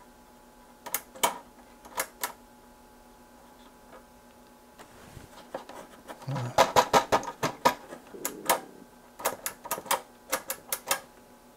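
Push-button power switch of a Keithley 192 bench multimeter clicking as it is pressed and released over and over, cycling the power. Two pairs of clicks come in the first few seconds, then quicker runs of clicks in the second half.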